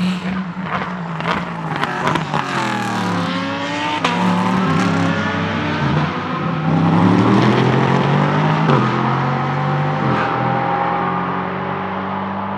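Ligier JS P320 LMP3 prototype's Nissan VK56 5.6-litre V8 braking into a corner, with falling revs through several downshifts and sharp cracks in the first few seconds. Then it accelerates out with rising revs, changing up twice about nine and ten seconds in.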